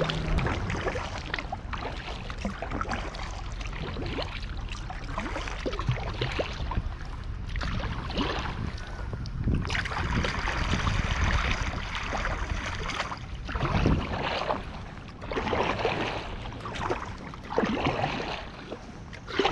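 Kayak paddle strokes dipping and splashing, with wind buffeting the microphone as a low rumble.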